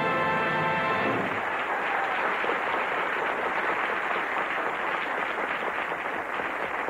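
A sung song's last held note with the band ends about a second in. A studio audience's applause follows and continues steadily.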